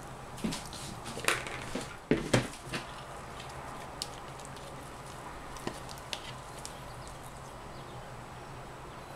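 Spatula scraping and knocking against a mixing bowl and loaf mold as thick cold-process soap batter, riced by an accelerating leather fragrance, is scooped and dropped into the mold. A few short knocks and scrapes come in the first three seconds, then scattered single taps over a faint steady low hum.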